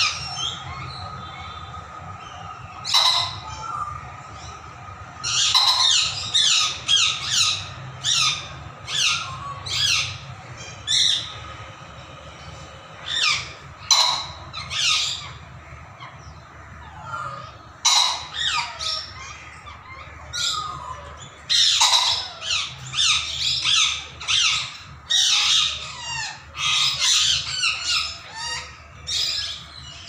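Birds in an aviary calling: bursts of short, harsh squawks and chirps that come in clusters, with brief gaps between them.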